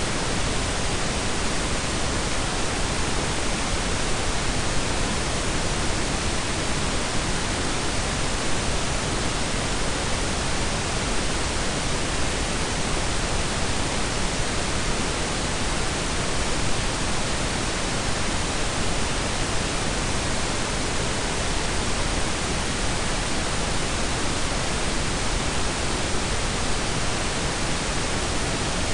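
Steady synthetic pink and brown noise blended together: an even, unchanging hiss with a deep low rumble beneath it.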